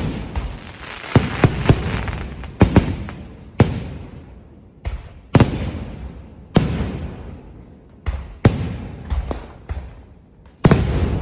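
Fireworks going off in a rapid, irregular series of loud bangs, about one a second with some in quick doubles and triples, each trailing off in a rumbling echo. A tight burst of several bangs comes near the end.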